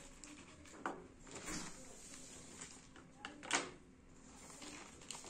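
Handling of a clear plastic zip-lock bag and a small plastic enclosure: rustling with a few scattered clicks and knocks, the loudest about three and a half seconds in.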